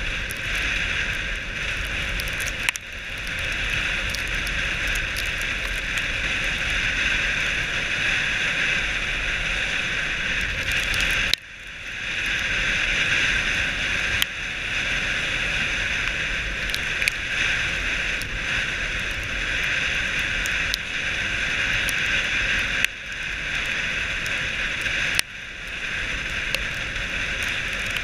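Dogsled runners hissing steadily over packed snow, with wind rumbling on the microphone. The hiss drops out abruptly for a moment four times.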